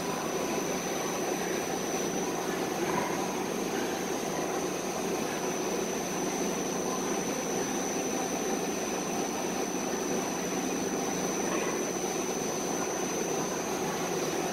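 Steady mechanical drone and hiss with a thin, high steady whine above it, unchanging throughout.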